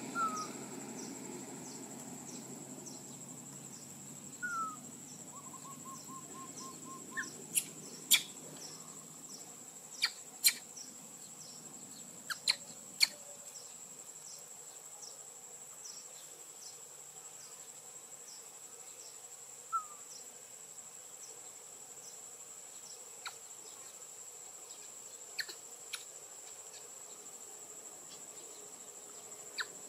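Crickets droning steadily at a high pitch, with faint regular ticks. A few short falling chirps come through at intervals, and sharp clicks break in now and then, louder than the insects.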